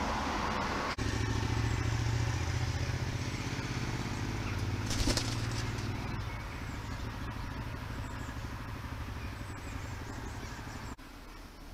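Low, steady engine rumble that slowly fades, starting abruptly about a second in and cutting off near the end, with a brief sharp rustle about five seconds in.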